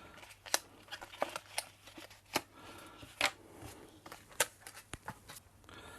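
Plastic packaging being handled and opened: irregular sharp clicks and crackles of stiff plastic, about a dozen, spread unevenly.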